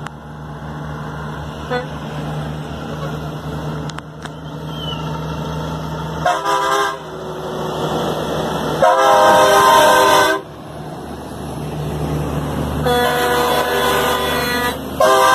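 Kenworth semi-trucks' air horns blowing as they drive past, over the steady low running of their diesel engines: a short toot about six seconds in, a long loud blast around nine to ten seconds, and another long blast near the end.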